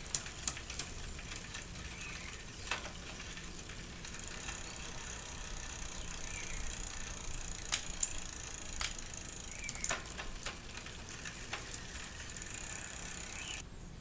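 Bicycle drivetrain turned by hand with the rear wheel spinning in the air: the chain runs with a steady whir over the cassette and the rear derailleur pulleys, with scattered clicks. This is a test of a just-straightened rear derailleur whose limit screws are still out of adjustment.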